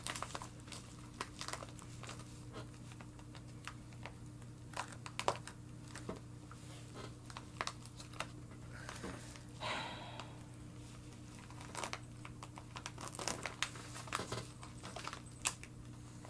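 Package wrapping being unwrapped by hand: scattered crinkles and crackles of paper and plastic, with a longer rustling crinkle about ten seconds in. A faint steady hum runs underneath.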